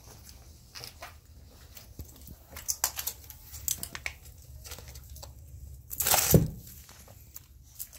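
Small dog eating scraps of a fried chicken sandwich off a sheet of wax paper: irregular crinkling and rustling of the paper with small clicks of chewing, and a louder crinkle of the paper about six seconds in.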